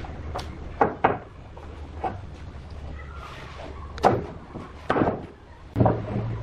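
Irregular knocks and clunks of wood on wood, about seven sharp hits spread unevenly, over a low steady machine hum; near the end the hum changes abruptly to a slightly higher one.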